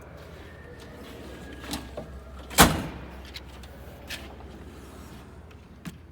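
Metal drawers of a Snap-on tool chest sliding on their runners and being shut, with one loud bang about two and a half seconds in and a few lighter clicks around it.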